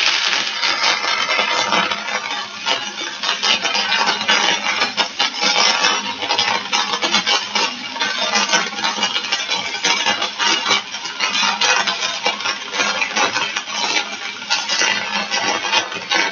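Stick-welding arc of a 1/8-inch 6013 electrode burning on DC at about 120 amps, a steady, dense crackle as a bead is run across steel plate.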